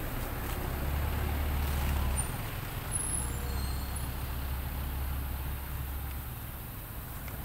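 Steady low engine rumble of a motor vehicle running, swelling a little in the first half, with a few short, faint high chirps about two to three seconds in.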